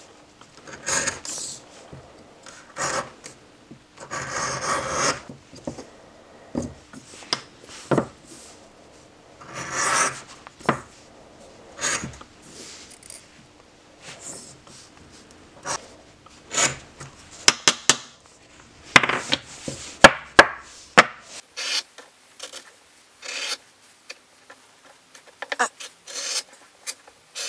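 Leather edge beveler shaving the edges of leather glued to small wooden strop blocks: a series of short scraping strokes, each peeling off a curl of leather, with a few sharp clicks past the middle.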